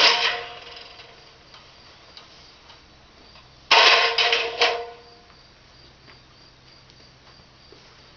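Hammer blows: one sharp strike right at the start, then a quick run of about four strikes near the middle, each leaving a brief ringing tone. Crickets chirp faintly and steadily underneath.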